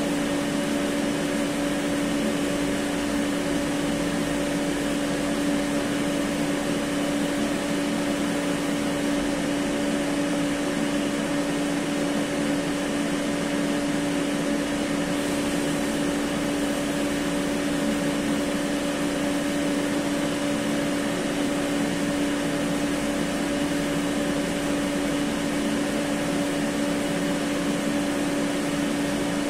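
Variable frequency drives in an electrical cabinet running: a steady electrical hum with a higher tone above it, over the even whoosh of cooling fans, unchanging throughout.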